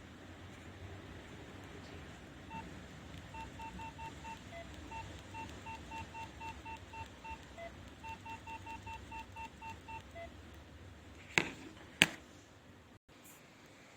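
Nokia 2600 classic phone playing a simple beeping ringtone through its small speaker: quick runs of short beeps on one pitch, each run closed by a single lower beep, three times over. Two sharp clicks follow near the end.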